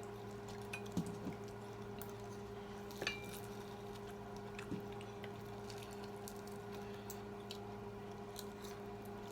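Cutlery clicking and scraping against plates now and then during a meal, with one clearer clink about three seconds in, over a steady low hum.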